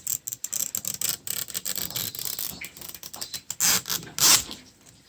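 Plastic toy packaging being handled and opened: a dense run of fast crackling clicks, with two louder rustling bursts about three and a half and four seconds in.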